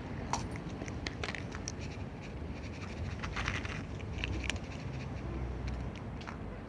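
A cat eating, with irregular small clicks and crackles of chewing, thicker about halfway through.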